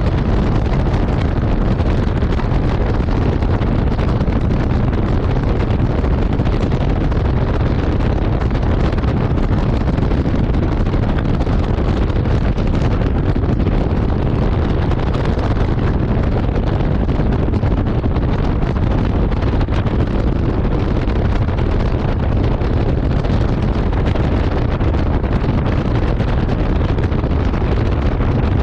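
Floodwater rushing: a loud, steady noise of moving water with a heavy low rumble and no let-up.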